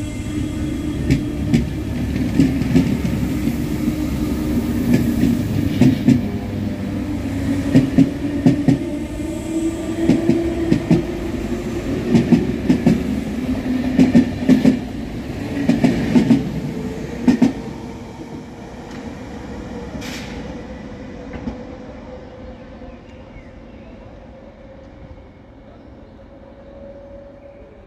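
RER B electric train pulling out of the station: its wheels clack over the rail joints in pairs every second or two over a steady low hum, then the sound fades away as the train recedes.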